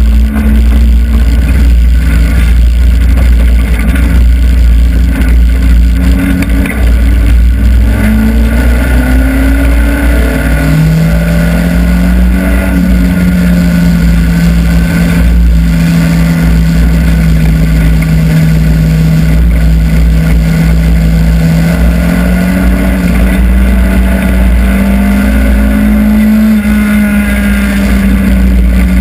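Hobby stock race car engine running hard at racing speed, heard from inside the cockpit over a heavy low rumble. The engine note rises and falls through the first several seconds, then holds steady at high revs, climbing briefly near the end.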